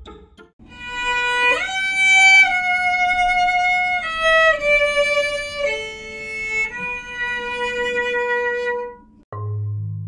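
Music: a slow violin melody of long held notes, each changing pitch after a second or so, which ends about nine seconds in; a lower, deeper note begins just before the end.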